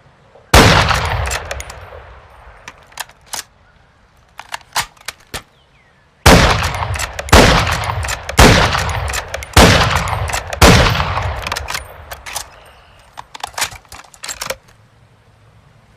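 M24 bolt-action sniper rifle firing: one shot with a long fading echo, a few quick clicks, then five shots about a second apart, each ringing out, followed by more quick clicks.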